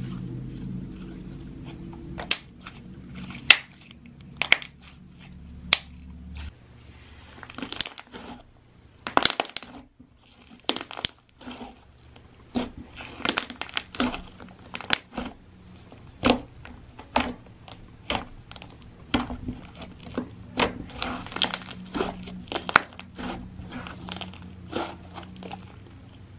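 Slime being stretched, folded and squeezed by hand, giving off irregular sharp pops and clicks as trapped air bursts through it, with a sticky crackle between them.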